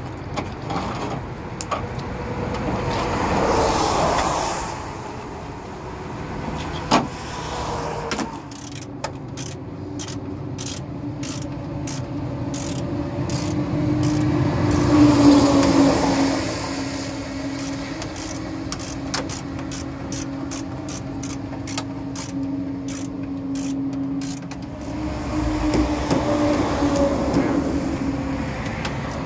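Road traffic passing: three vehicles swell up and fade away one after another, with a steady engine hum under the middle pass. A single sharp click comes about seven seconds in.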